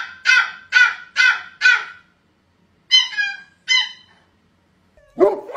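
Small puppy yipping, a run of short high barks about two a second, then a pause and two higher yelps that fall in pitch. A lower, louder dog sound starts near the end.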